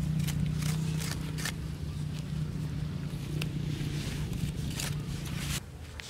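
Knife blade scraping and digging into dry soil in short, irregular strokes, over a steady low hum that stops shortly before the end.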